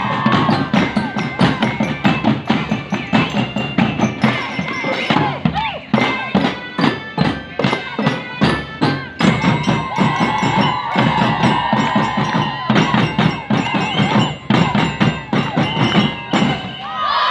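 Marching drum band playing: rapid drum strokes under a ringing, bell-like metallic melody.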